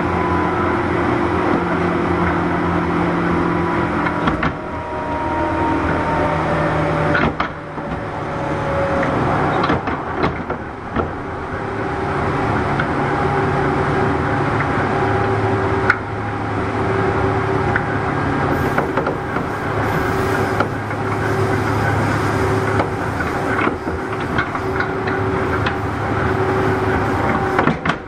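JR West 201 series electric train running, heard from inside a motor car: traction motor and armature chopper tones over the rumble of wheels on rail. A couple of higher tones slide down in pitch for a few seconds about a fifth of the way in.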